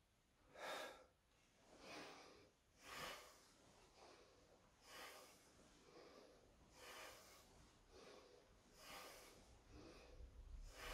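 Faint, forceful breaths of a man training with a bokken, one about every one to two seconds, paced to his repeated overhead cuts.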